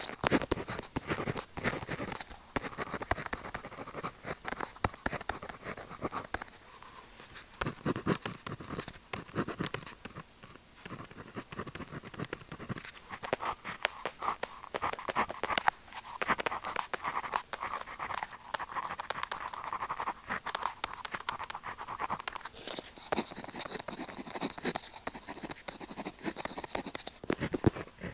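Pen nib scratching across paper in quick, continuous writing strokes, close-miked, with brief lulls between runs of strokes.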